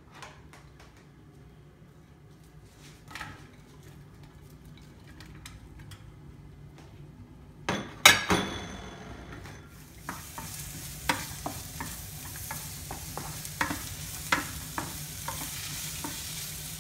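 Sliced red onion tipped into a hot oiled non-stick frying pan with a clatter about halfway through. Soon after, it starts sizzling as it fries. A wooden spatula taps and scrapes the pan again and again as the onion is stirred.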